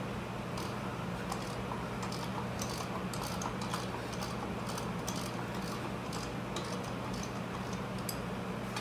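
A ratcheting wrench clicking in short irregular runs as it is swung back and forth on an 18 mm bolt of a front brake caliper, over a steady low hum.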